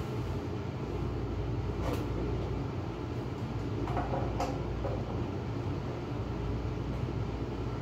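Steady low hum of running equipment, with a few faint clicks and clinks about two seconds and four seconds in as gloved hands work at the battery terminals and cables.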